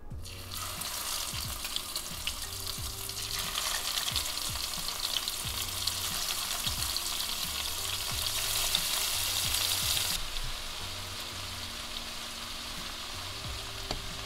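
Marinated shrimp sizzling in hot cooking oil in a nonstick pan as they are laid in one by one. The frying hiss grows louder a few seconds in as more shrimp go in, then settles to a softer, steady sizzle about ten seconds in.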